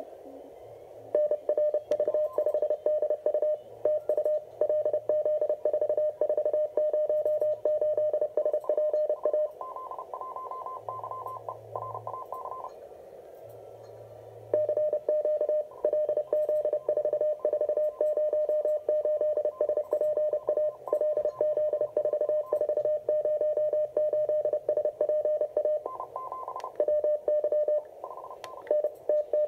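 Morse code (CW) from an RGO ONE shortwave transceiver: one station keys a strong medium-pitched tone, and a second station's higher tone about 430 Hz away is heard close alongside. For a few seconds near the middle the strong tone stops and only the weaker, higher station is heard. Then the strong station returns.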